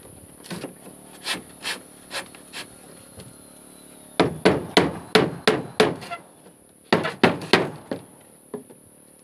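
Hammers driving nails into wooden floorboards: a few light taps at first, then two quick runs of loud strikes, starting about four and about seven seconds in.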